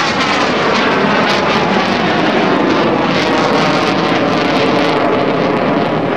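A Blue Angels F/A-18 Hornet, a twin-engine jet, flies overhead in a steep, smoking climb. Its jet engines make a loud, steady noise throughout.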